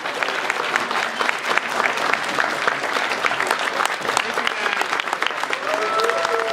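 Convention audience applauding, many hands clapping at a steady level. A voice calls out over the clapping near the end.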